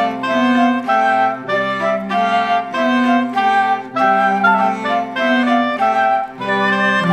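Background music: a light tune of woodwind-like synth notes over a steady, repeating accompaniment.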